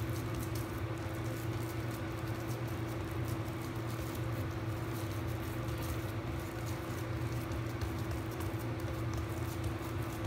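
Fingertips lightly patting and pressing a round of puff-pastry dough flat on a marble counter, soft irregular pats, over a steady low hum.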